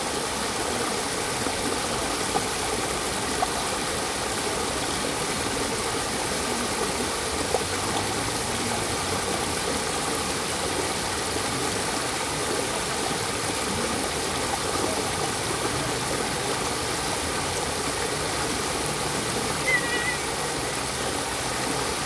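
Water rushing steadily over the rocks of a small waterfall cascade and down a shallow stream. A brief high chirp sounds once near the end.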